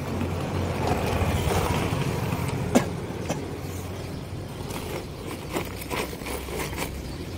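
A motor vehicle passing on the road, its low rumble swelling over the first two seconds and slowly fading, with a sharp click about three seconds in and a few lighter clicks and rustles as a delivery bag and its plastic packaging are handled.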